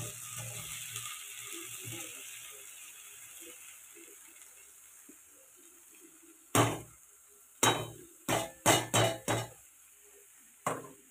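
Potatoes and soya chunks tumbling into an aluminium kadai with a soft rush that fades. Later comes a run of seven sharp knocks and clatters of kitchen utensils against the pan.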